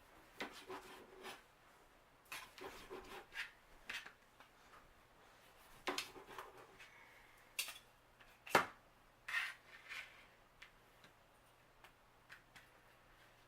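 Knife slicing cooked Italian sausage: irregular cuts and short taps of the blade, with one louder knock about two-thirds of the way through.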